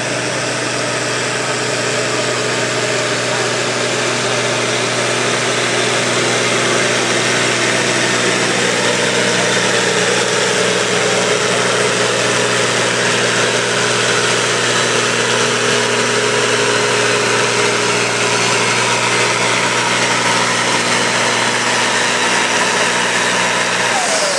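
Farm tractor engine running close by at a steady, even speed, with no revving.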